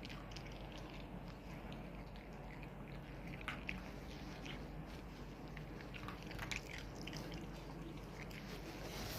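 Chihuahua chewing and crunching its food, with irregular crisp bites.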